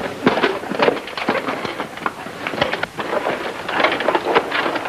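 A rapid, irregular run of knocks and clatters over steady soundtrack hiss.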